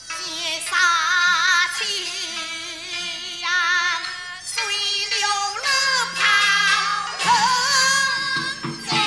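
Teochew opera aria: a high singing voice with a strong vibrato over the opera band's accompaniment. About two seconds before the end a quick, even pulse of about five beats a second comes in under the voice.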